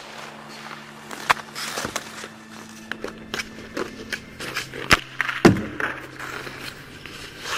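Ice hockey sounds: skates scraping on ice and sharp knocks of sticks and puck, over a low steady hum. The loudest is a heavy thud about five and a half seconds in.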